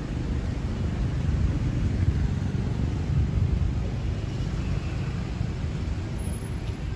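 Steady low rumble of outdoor urban background noise, with no distinct events standing out.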